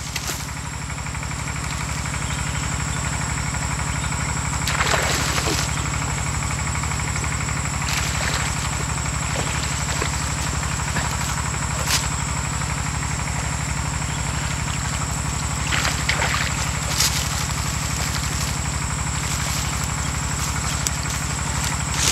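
A steady, low, rapidly pulsing mechanical drone, like a small engine running, with a thin high whine over it and a few sharp clicks.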